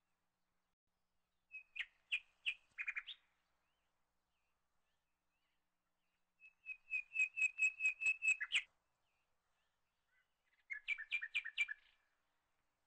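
A bird calling in three bursts of quick repeated chirps, the middle burst the longest.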